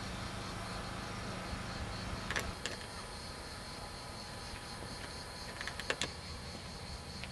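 Insects chirping steadily over a low rumble on the microphone, with a few sharp clicks about two and a half and six seconds in.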